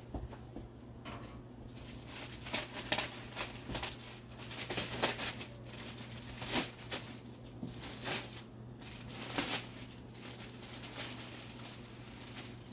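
Clear plastic wrapping crinkling and rustling in irregular bursts as it is cut open and pulled off a polycarbonate table.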